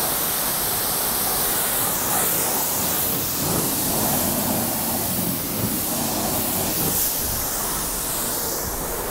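Water spraying steadily from a hose spray lance onto a car's paintwork and splashing off it, rinsing off shampoo foam.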